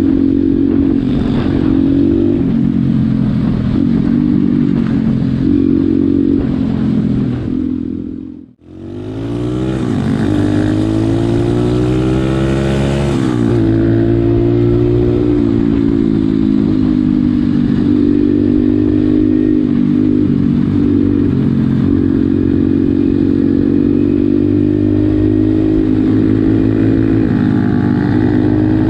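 Pit bike engine running, its note stepping up and down with the throttle. About eight seconds in the sound dips out for a moment, then returns with the engine note climbing steadily for several seconds.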